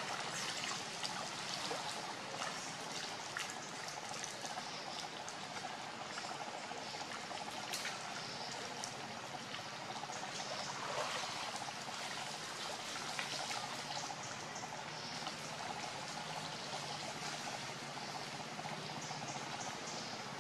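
Steady rushing outdoor background noise, with faint short high chirps scattered through it.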